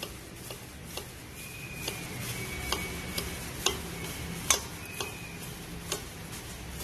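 Gloved hands mixing chopped vegetables and spices in a small stainless steel bowl: irregular light clicks and taps of fingers and plastic gloves against the steel, over a low steady hum. A faint thin high tone comes and goes in the middle.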